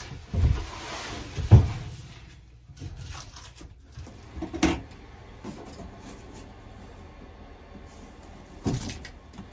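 Knocks and bumps from a thin wallboard ceiling panel and wooden trim being fitted overhead: two sharp knocks in the first two seconds, then softer bumps about halfway and near the end.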